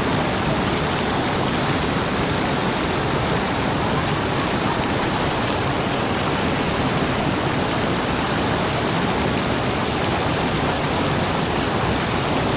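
Steady, even rushing of water, with no break or change.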